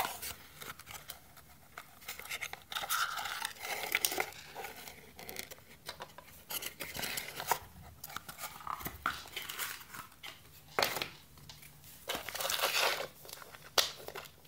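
A small cardboard box being opened and its contents handled: irregular rustling and crinkling of cardboard and packaging, with scattered sharp clicks and taps.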